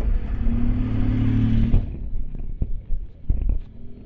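A motor vehicle's engine running close by over a low rumble, its hum cutting off sharply just under two seconds in, with a few faint knocks after.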